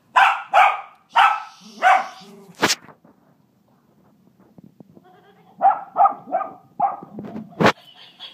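Battery-powered plush laughing monkey toy playing its laugh: a run of quick, evenly spaced 'ha-ha-ha' pulses near the start and another about five and a half seconds in. A sharp knock cuts in twice, about two and a half seconds in and near the end.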